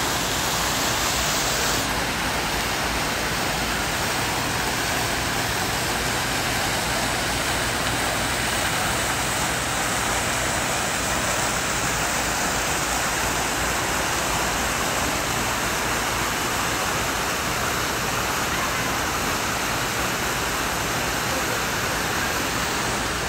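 Fountain water splashing: a tall jet shooting up from a pond and falling back onto the surface, a steady rushing hiss.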